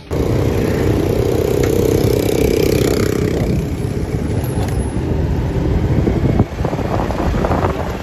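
Motorcycle running while being ridden through street traffic, with wind buffeting the microphone; a brief knock about six and a half seconds in.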